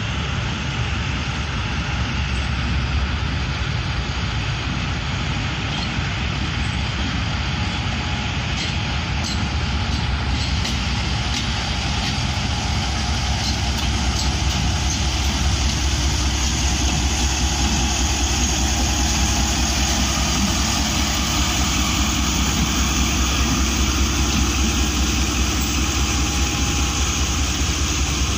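ZCU-30 diesel locomotive's engine running with a steady deep drone as it moves along the tracks, growing somewhat louder about halfway through as it draws near.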